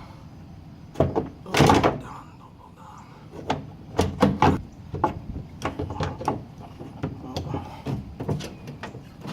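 Irregular metal clicks, knocks and clunks of hand tools and parts being worked at a van's side-door latch, with a longer, louder rattle about a second and a half in.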